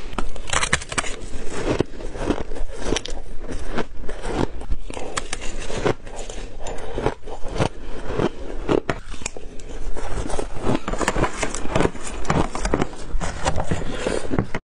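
Shaved ice being bitten and chewed close to a clip-on microphone: a dense run of irregular crunches and crackles, mixed with a metal spoon scraping against a glass dish.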